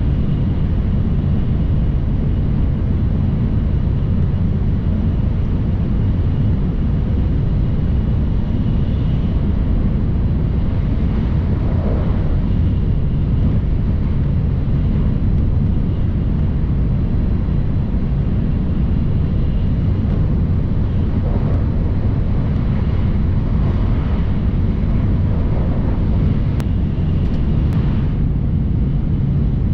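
Sanyo Shinkansen bullet train running at speed: a steady low rumble at an even level.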